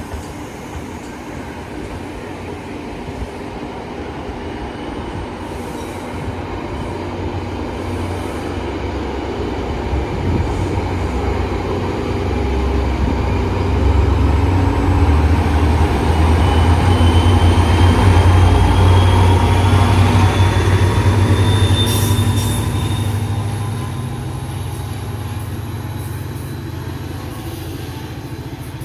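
A train passing, its low rumble building to a peak in the middle and easing in the last few seconds, with a thin wheel squeal slowly rising in pitch.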